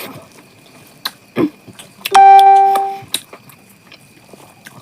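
A loud single pitched tone sounds once about two seconds in and lasts just under a second, fading as it goes. Scattered small clicks and knocks come before and after it.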